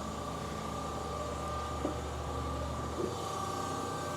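Amada Promecam HFB 8025 hydraulic press brake's pump motor running with a steady hum and a held whine. Two faint clicks come near the middle and about three seconds in.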